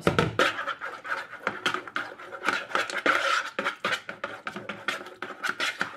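Metal spoon stirring a thick yogurt and mayonnaise dressing in a plastic mixing bowl: rapid, irregular scraping and clicking strokes against the bowl.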